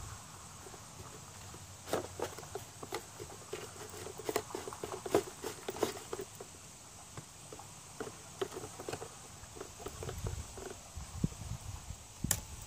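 Faint scattered clicks and light rustling, busiest between about two and six seconds in and again near the end, over a low steady background hiss. No gunshot.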